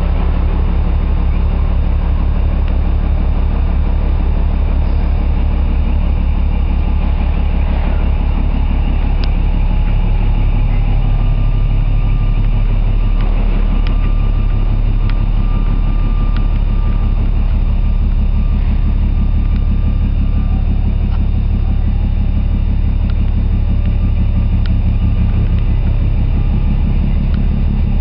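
Heavy ship's machinery running with a steady low drone and a fast, even throb. A faint higher whine comes in over the middle part.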